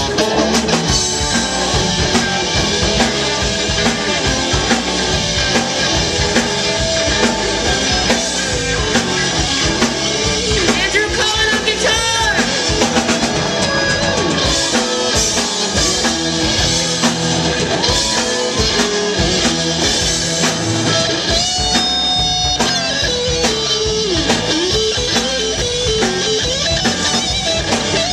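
Live rock band playing loud: distorted electric guitars, bass and drum kit, with a girl singing lead.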